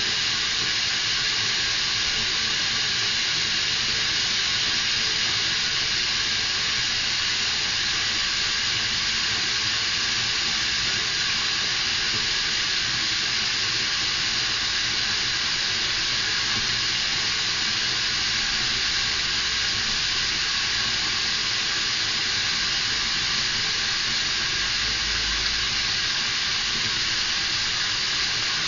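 A steady, even hiss that does not change at all.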